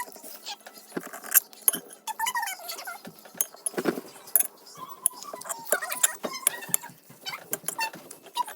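A scatter of sharp clicks and clinks with a few short, high squeaky sounds in between.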